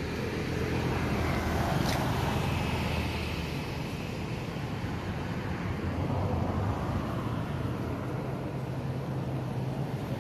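A motor vehicle engine running nearby with a steady low hum that swells slightly a couple of times.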